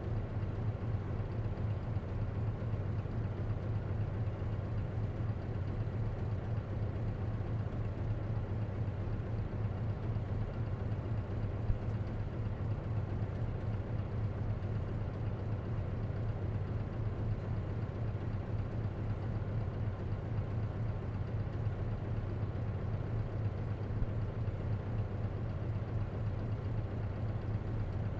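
Isuzu KC-LV380N city bus heard from inside: its diesel engine running steadily with a deep low hum, unchanging throughout, with a couple of faint clicks.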